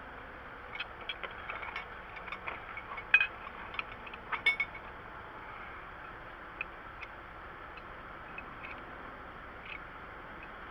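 Scattered light metallic clicks, clinks and rattles from tools being handled, over a steady hiss of background noise; the clicks come thickly for the first few seconds, then thin out to an occasional tick.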